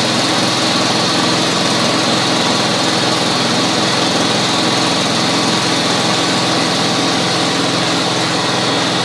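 Massey Ferguson MF10 garden tractor engine running steadily at half throttle through a new muffler, a constant even drone with no change in speed.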